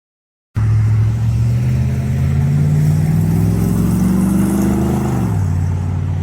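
Car engine starting abruptly about half a second in, its pitch climbing slowly for several seconds as it revs, then falling back to a steady lower run near the end.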